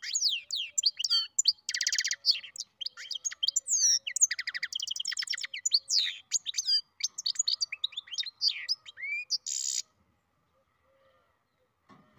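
Goldfinch × canary mule singing a long, fast, varied song of rapid trills, repeated notes and sweeping whistles with buzzy passages. The song breaks off suddenly near the end.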